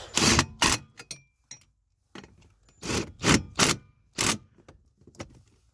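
Metal tools and bits being handled and rummaged through: six or so short scraping, jangling rattles with quiet gaps between.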